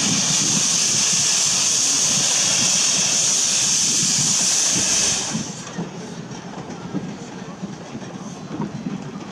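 Peckett saddle-tank steam locomotive moving slowly with its cylinder drain cocks open: a loud steady hiss of steam that cuts off about five seconds in, leaving quieter running noise.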